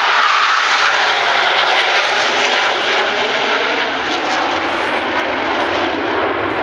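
Loud, continuous jet roar from a formation of F/A-18 Hornet fighter jets passing overhead, its pitch sliding slowly lower as the jets fly by.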